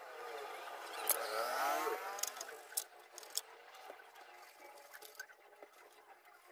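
A motor hum whose pitch glides, swelling to its loudest between one and two seconds in and then fading. A few sharp clicks and taps come from a CRT TV circuit board being handled.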